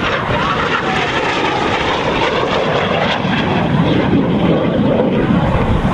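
Aermacchi MB-339 jet of the Frecce Tricolori flying past, its engine a steady, loud rushing noise.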